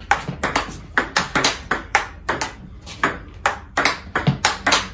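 Table tennis rally: a celluloid ball knocking alternately off a racket faced with Omega VII China tensioned-tacky rubber and the table, in a quick even rhythm of about three to four sharp clicks a second.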